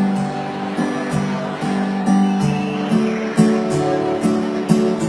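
Acoustic guitar strumming chords in a steady rhythm, about two strokes a second.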